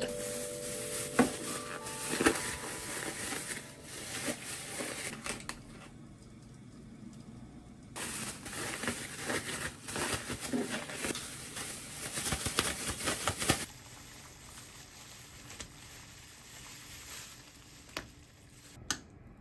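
Thin plastic bag crinkling and rustling in two bursts as raw chicken tenderloins are worked inside it with sake and potato starch. After that comes a quieter, steady hiss of water at a rolling boil, with a couple of sharp clicks near the end.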